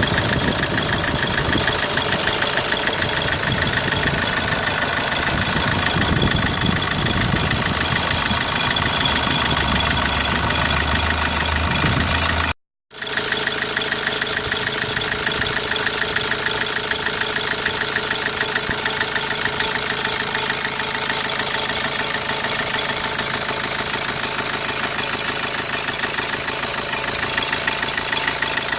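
Opel Corsa D 1.3 CDTI four-cylinder turbodiesel engine running steadily at idle, with its engine noise under inspection. The sound cuts out briefly about halfway through.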